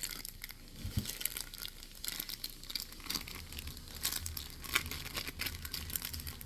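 Paper and plastic crinkling and crackling in scattered bursts as a homemade squishy is handled and worked on. A faint low hum joins about halfway through.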